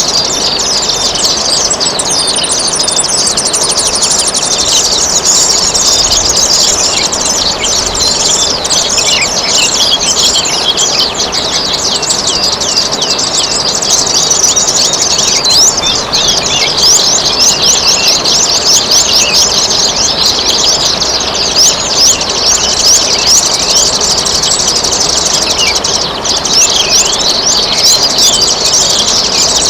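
A dense chorus of small songbirds chirping and trilling rapidly and without pause, over a steady trickle of running water.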